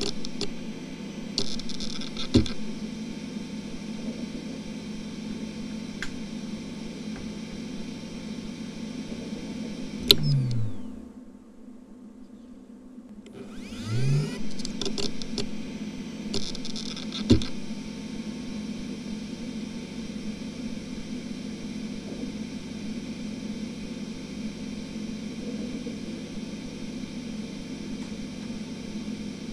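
A Western Digital XE 10,000 rpm 2.5" SAS enterprise hard drive running with a steady high spindle whine and hiss, with bursts of head-seek chatter and a sharp click about two seconds in. About ten seconds in the whine drops away and the sound goes low for a few seconds. Then the whine rises again as the platters spin back up, followed by another burst of seek chatter and a click, and a steady whine after that, as the RAID controller initialises the drive.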